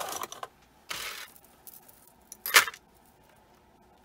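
Metal jewelry handled on a tabletop: brief rustles and clinks of chains and bangles, three short bursts with the sharpest clack about two and a half seconds in.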